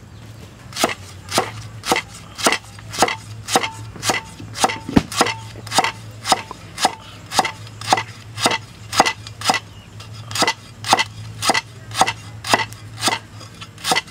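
Heavy cleaver slicing lemongrass stalks on a round wooden chopping block: a steady run of sharp chops, about two a second.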